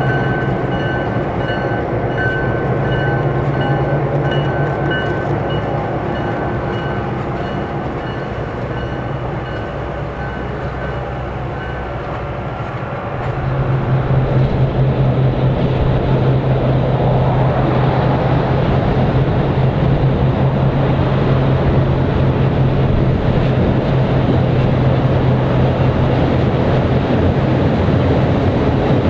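Pair of GMD FP-9 diesel locomotives passing close with a steady engine drone, then the train's cars rolling by. About halfway through, the sound jumps louder to a strong steady low engine drone with a broad rushing noise.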